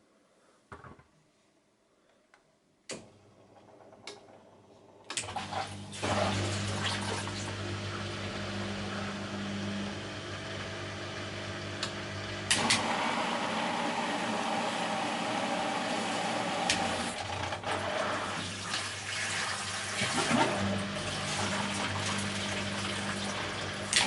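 Bosch Maxx WFL 248Y front-loading washing machine taking in water: a few clicks, then about five seconds in water starts rushing in with a steady low hum, growing louder at about twelve seconds.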